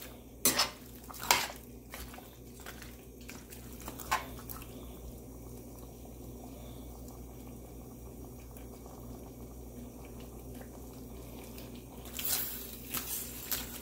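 A metal spoon knocking and scraping against a stainless steel pan while stirring tortilla pieces in mole sauce, with soft wet squishing: a few sharp knocks in the first four seconds and a cluster of them near the end, with only a low steady hum in between.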